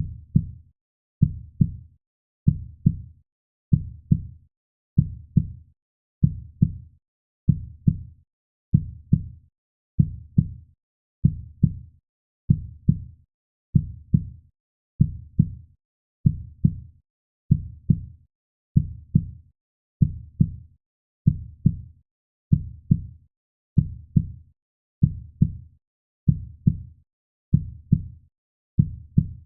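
Slow, steady heartbeat sound of evenly spaced low double thumps (lub-dub), about one beat every one and a quarter seconds, with silence between beats.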